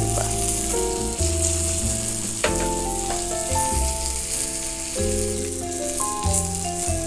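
Breaded chicken fillets frying in shallow oil in a pan, a steady sizzle, under background music of held notes that change every half second or so.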